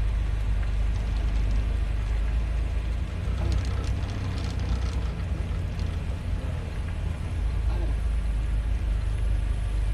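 Steady low rumble of a motor vehicle driving along a road, its engine and tyres heard from on board, with faint voices now and then.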